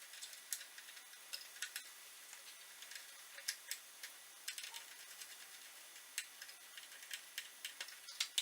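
Irregular light clicks and ticks of small connectors and terminals being handled as power leads are fitted to a charger's DC input.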